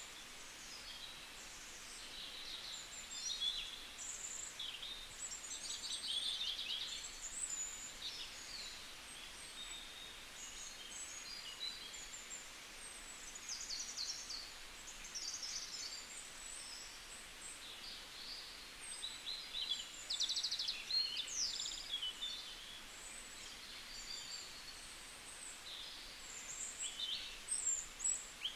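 Small birds chirping and twittering: many short, high calls in quick succession over a faint steady hiss.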